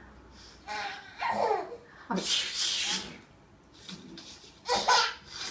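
A baby laughing in short bursts, with an adult's loud sneeze about two seconds in, done in play to make the baby laugh.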